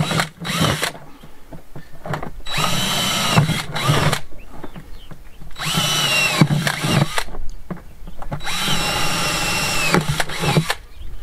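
Cordless drill boring drainage holes through the bottom of a flexible plastic tub, running in several bursts of one to two seconds that each spin up and wind down.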